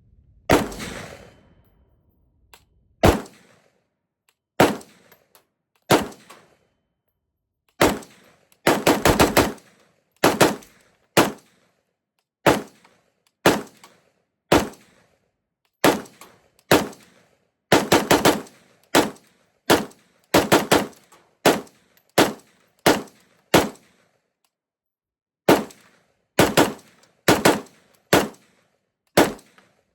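Gen 1 IWI Galil ACE SAR rifle in 5.45×39 with a Krebs titanium muzzle brake, fired rapidly in semi-automatic: some thirty sharp shots, mostly about a second apart, broken by quick strings of several shots and one short pause near the end.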